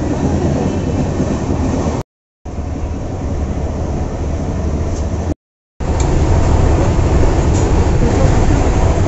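Steady low rumble of a moving passenger train heard from inside the coach. The sound cuts out to silence twice for a split second.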